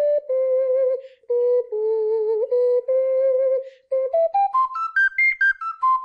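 Alto C double ocarina played in a slow line of held low notes, with a second, higher note sounding over some of them. About four seconds in, a quick run of short notes climbs into the high register and steps back down.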